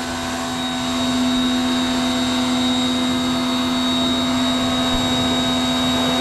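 Hyundai 1400-watt, 105-bar electric pressure washer running steadily under load as it sprays. The motor and pump hold a constant humming pitch with a thin high whine on top, and the water jet hisses from the spray gun.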